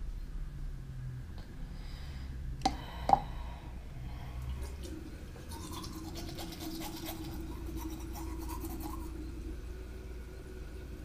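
Teeth being brushed with a toothbrush: a scratchy scrubbing through the middle, with a steady low hum under it. Two sharp clicks come just before, about two and a half and three seconds in.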